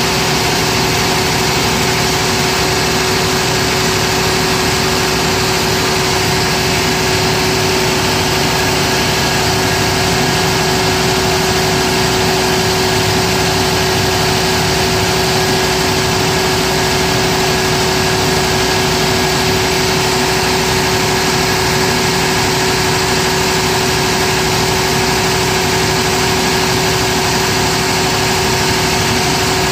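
Cummins diesel engine of a 750 kVA generator set running steadily under electrical load, a loud even drone with one strong steady tone over it.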